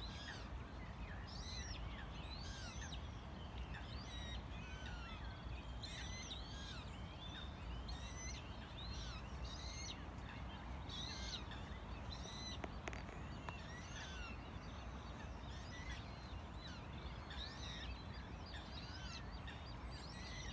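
Small songbirds singing and calling: many short chirps and whistles, one after another, over a steady low rumble.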